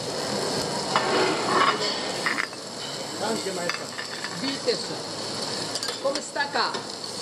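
Meat and seafood sizzling on a flat-top steel griddle, a steady frying hiss, with a few short scrapes and taps of metal spatulas on the plate.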